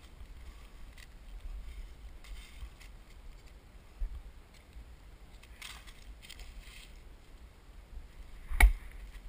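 Light rustling of dry leaves and twigs, then one sharp, loud crack of wood being chopped near the end, as dead wood is cut for smoking.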